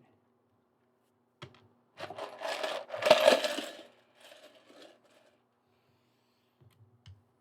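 Small building-set parts clattering as they are rummaged through and picked out. After a single click, a burst of clatter lasts about two seconds, then softer rattles and a couple of light clicks follow.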